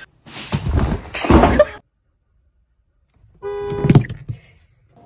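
Two loud bursts of scuffling noise, then after a pause a steady tone and a sharp thump as a cat lands on a car's bonnet.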